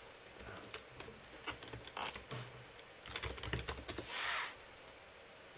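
Typing on a computer keyboard: a scattered run of key clicks as a short terminal command is entered, with a brief hiss a little after four seconds in.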